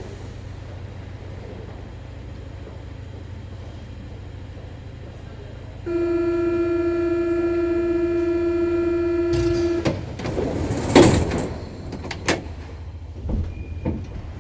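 Inside a Paris Métro MP73 train car, a steady low hum, then the door-closing warning buzzer sounds one steady tone for about four seconds. The doors then bang shut with a clatter and a few knocks.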